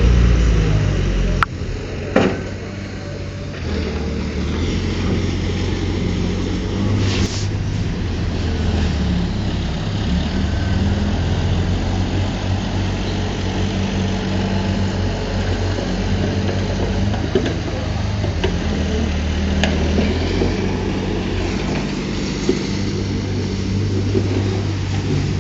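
Diesel engine of heavy earthmoving machinery running steadily under load, with a few sharp knocks early on and about seven seconds in.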